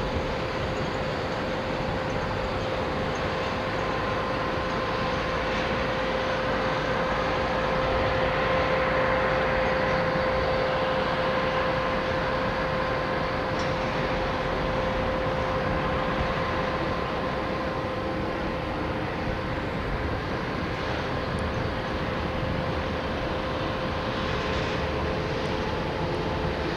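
Jet airliner engines running, a steady broad rumble with a constant whine on top, swelling slightly about eight to ten seconds in.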